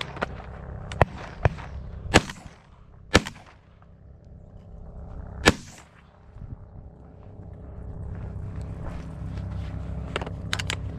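Shotgun shots from duck hunters at opening shooting light: a string of sharp reports, several in the first six seconds, the loudest ones trailing off in a short echo, and a few more near the end. A steady low rumble runs underneath.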